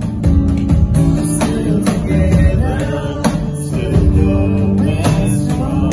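Live acoustic performance: a female voice singing into a microphone, accompanied by a strummed acoustic guitar.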